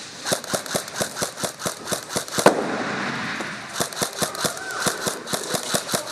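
Airsoft guns firing rapid strings of shots, about five a second, with one louder crack about two and a half seconds in before the shooting picks up again.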